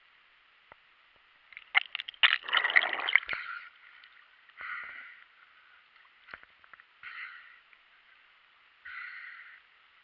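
Water splashing and knocking against a GoPro's waterproof housing as the diver breaks the surface, loudest about two seconds in. After that, shorter sloshes about every two seconds as the camera rides the small waves at the waterline.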